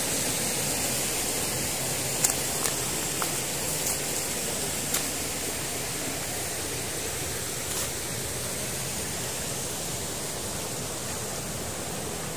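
Night-time forest ambience: a steady, even hiss with a faint high whine over it, and a few light clicks between two and five seconds in and once near eight seconds.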